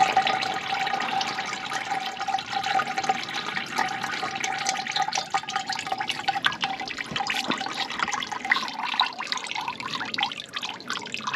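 A thin stream of old oil mixed with rust penetrant, with lumps of sludge, pours from a Fordson Super Major's drain hole into a plastic bucket. It holds a steady pouring note at first, then about halfway through breaks up into splashes and drips.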